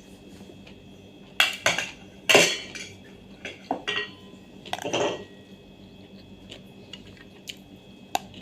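A spoon clinking and scraping against a dish in several short bursts, the loudest about two and a half seconds in, as food is scooped up.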